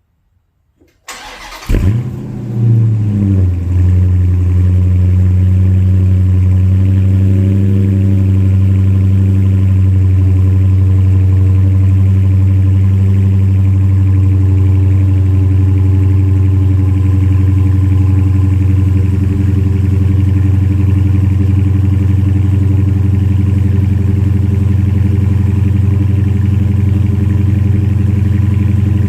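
2019 Dodge Challenger R/T Scat Pack's 392 Hemi 6.4-litre V8 with active exhaust starting up. A brief crank about a second in, then a sudden loud flare that settles within a couple of seconds into a steady idle.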